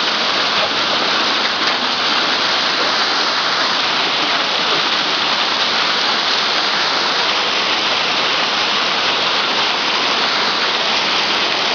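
Hail falling: small hailstones striking the paved ground in a dense, steady hiss that does not let up.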